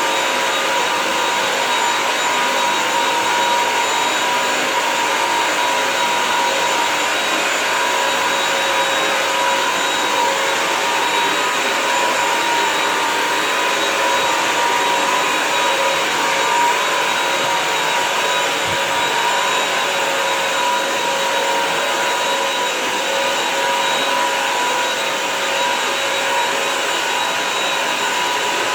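Bissell CrossWave multi-surface wet-dry vacuum running steadily as it cleans a dirty floor: an even rushing hiss with a constant whine on top.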